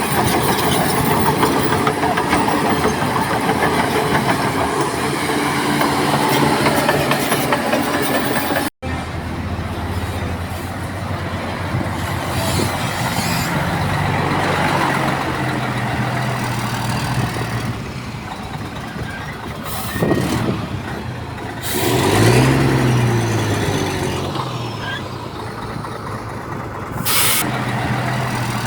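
Heavy diesel machinery, a dump truck and a bulldozer, running steadily, broken by an abrupt cut about a third of the way in. Later an engine revs up and back down, with a few brief sharp hisses.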